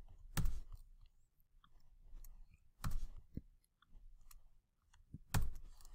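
Computer keyboard and mouse clicks: a few sharp key presses and clicks spaced a second or two apart, with fainter taps between, as a keyboard shortcut is used and file tabs are clicked.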